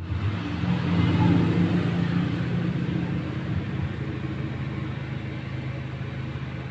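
A motor running with a steady low hum of several pitched tones, loudest about a second in and then easing off slightly.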